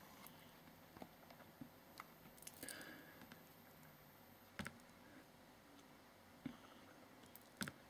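Near silence with a few faint clicks: a fingertip tapping a tablet's touchscreen. There is a short rustle near the middle, and three sharper clicks come spaced through the second half.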